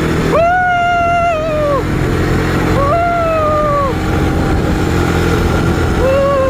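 A motor vehicle engine running steadily, with three long, drawn-out high calls over it, each about a second and a half, sliding down in pitch at the end.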